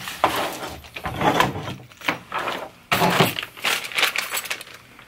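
Small plastic bags of metal hardware being picked up and handled: an irregular run of crinkling plastic and light clinks of small parts.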